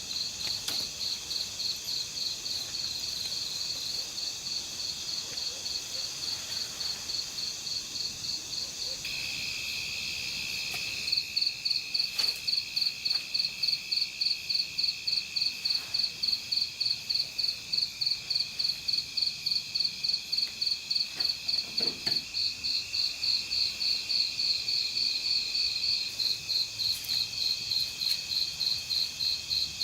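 Chorus of insects chirring on several high pitches at once, steady at first; about a third of the way in, a louder pulsing call joins, throbbing about two to three times a second.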